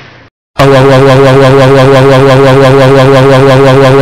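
The short tail of a car driving up. About half a second in, an extremely loud, distorted, sustained tone starts, several steady pitches at once with a fast, even pulsing.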